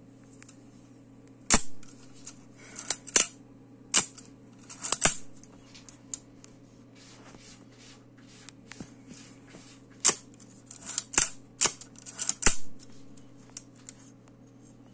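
The cloth focal-plane shutter of a FED-4 rangefinder camera is fired and cocked again and again during a shutter-curtain repair. There are about eight sharp shutter clicks in two groups, with smaller ratcheting clicks from the wind knob between them.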